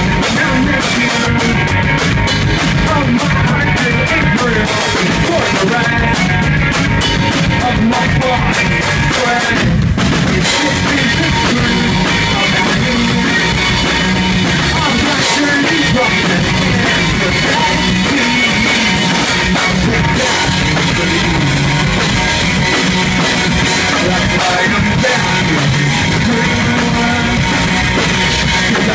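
Live rock band playing loud: electric guitars and a drum kit, with a momentary stop in the music about ten seconds in.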